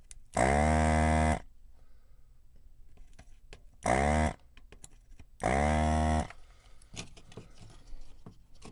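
Hakko handheld desoldering gun's vacuum pump switched on three times with the trigger, a steady hum each time (about a second, then a short half-second, then most of a second), sucking molten solder from a capacitor's joints on the circuit board. Light clicks from handling the gun and board come between and after.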